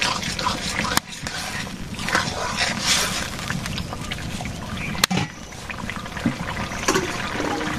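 Curry cooking in a steel karahi over a wood fire: a steady sizzling, bubbling hiss while a metal ladle stirs, with two sharp metal clinks, one about a second in and one about five seconds in.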